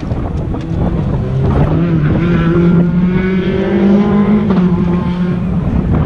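Engine running at high revs, holding a fairly steady pitch with small wobbles and a step up in pitch, for a few seconds before fading near the end, with wind on the microphone.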